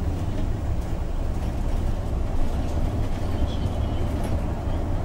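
Inside the cabin of a MAN Lion's City articulated bus with a biogas engine, driving at steady speed: a steady low rumble of engine and road noise.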